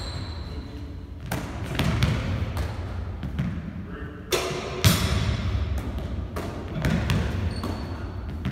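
A basketball thudding on a hardwood gym floor and being caught and shot in a catch-and-shoot drill: about a dozen irregular thuds and slaps.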